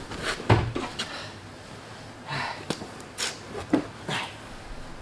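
Scattered knocks and clicks of loosened interior parts being handled inside a car, with a few short, heavy breaths of effort.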